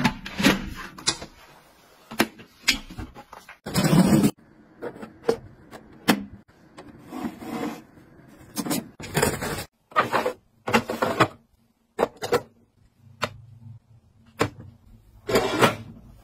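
Handling noises from plastic household gadgets: short bursts of clicking, knocking and rubbing, some sharp, broken by brief silent gaps.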